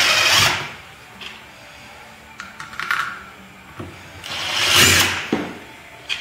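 Cordless drill-driver driving screws into a plastic end cap, in two short bursts of motor whine: one that stops about half a second in, and one about four and a half seconds in that rises and falls. Small clicks of screws and handling come between them.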